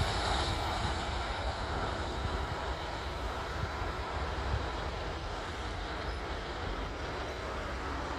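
Steady, even rumble of a large passing vehicle, easing off slightly over the first few seconds.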